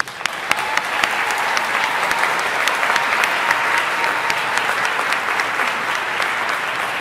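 Audience applauding, many hands clapping together; it starts suddenly, swells within about a second and holds steady.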